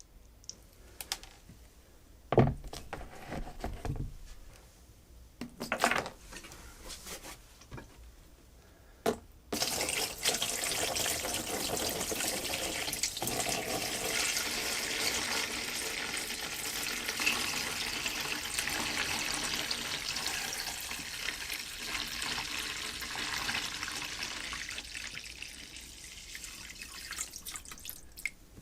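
A few sharp knocks, then water running steadily from a tap for most of the time before it tapers off near the end.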